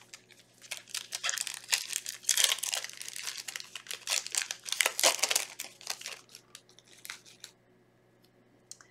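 A foil Yu-Gi-Oh booster pack being crinkled and torn open by hand, a dense run of quick crinkles that stops about seven and a half seconds in.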